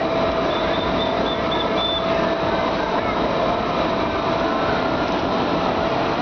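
Electric air blower running steadily as it fills a water-walking ball through its zippered opening, a constant rushing noise with a steady hum.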